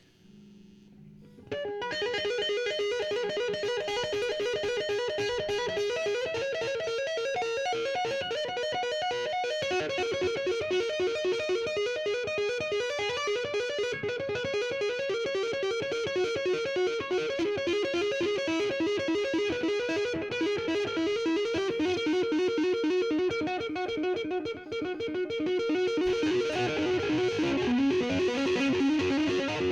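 Electric guitar played with two-hand tapping: a fast, continuous run of ringing notes that starts about a second and a half in and grows denser and brighter near the end.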